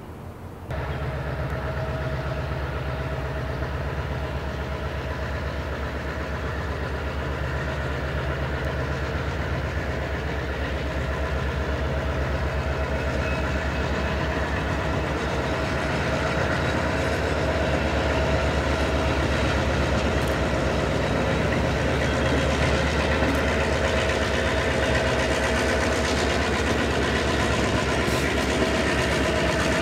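EMD diesel locomotive running steadily as it moves a cut of boxcars, a low engine throb with a thin steady whine above it. The wheels roll over the rails, and the sound grows slowly louder as the locomotive comes closer. The sound starts suddenly just under a second in.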